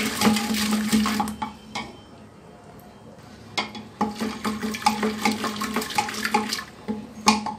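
Wooden dal masher (ghotni) churning cooked lentils in a metal pressure cooker pot: wet squelching with quick knocks of the wood against the pot, easing off for about a second and a half near the middle before picking up again.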